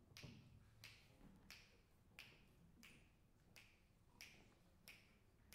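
Faint finger snaps at a steady slow tempo, about one every two-thirds of a second, setting the pulse for the band before it starts playing.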